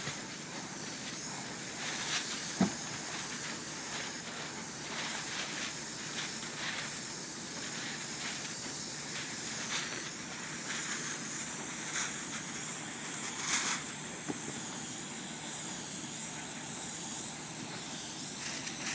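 Spray polyurethane foam roofing gun spraying foam with a steady hiss, broken by a couple of brief sharp clicks.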